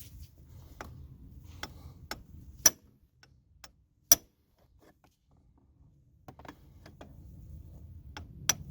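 Irregular sharp metallic taps on a long brass drift set on the shift-shaft nut, knocking the old shifter part down off the shift shaft. About ten taps, two of them much louder and ringing.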